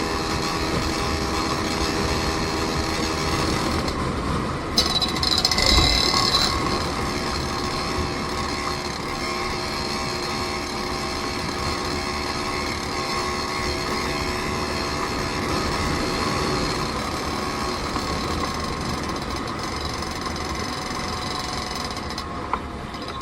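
Vehicle engine running steadily on the move. About five seconds in there is a brief, louder high-pitched squeal, with a low thump near six seconds.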